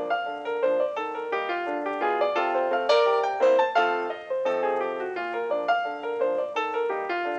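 Background music: a ragtime piano tune of quick, evenly paced notes.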